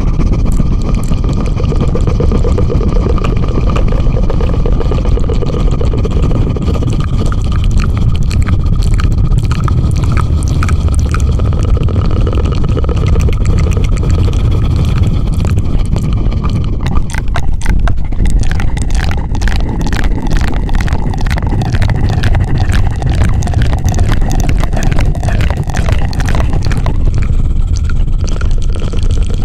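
Close-miked ASMR 'helicopter' trigger: a loud, steady, fluttering rumble right against the microphone, laced with rapid crackling strokes that turn sharper and more distinct a bit over halfway through.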